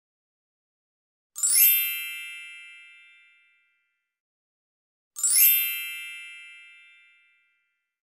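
A bright, bell-like chime sound effect struck twice, about four seconds apart, each strike ringing and dying away over about two seconds.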